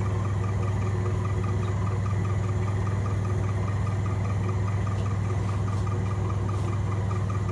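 A steady low hum with a faint, quick, regular pulsing above it, like a motor or fan running, unchanged throughout.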